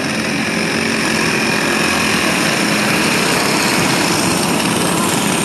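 A pack of dirt-oval racing karts, their small engines running together in a loud, steady din as they pass close by. They are circling at pace speed before the start.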